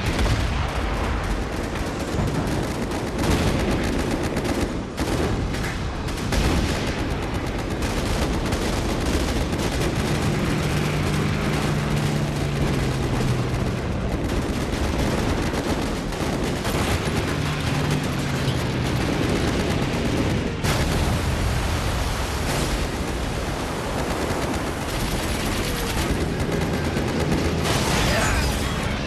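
Anti-aircraft barrage from a warship: continuous rapid gunfire mixed with flak shell bursts, with a low steady drone, such as aircraft engines, about halfway through.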